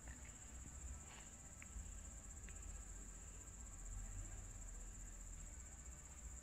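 Crickets chirping in a steady high-pitched chorus over a faint low rumble.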